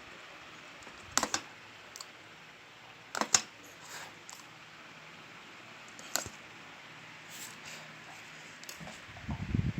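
Scattered sharp clicks and light knocks of hands handling a floodlight's wires and plug, about six in all, with a double click about three seconds in and rougher handling noise near the end.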